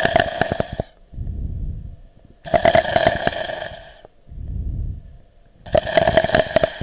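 Chest auscultation recording of breathing with crackles (rales): each inspiration carries a run of brief, sharp pops, followed by a softer, low exhalation, the cycle repeating about every three seconds. The pops are the discontinuous, non-musical inspiratory sounds of small airways popping open.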